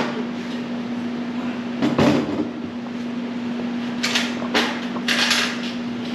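Handling noises while engine parts are fitted: a clunk with a short scrape about two seconds in, then a few brief scraping rustles near the end, over a steady hum.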